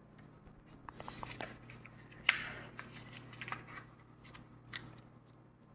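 Rustling and small clicks of things being handled, in a string of short irregular sounds, the loudest about two seconds in.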